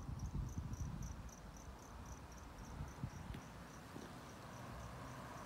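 A cricket chirping steadily at night, short high chirps at about three a second. Low rumbling handling noise on the microphone comes in the first second or so.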